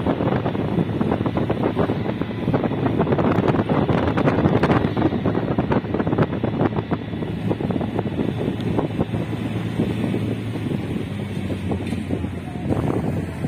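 Wind buffeting the microphone, with a rough, crackling rush over the low rumble of a moving vehicle driving along the road.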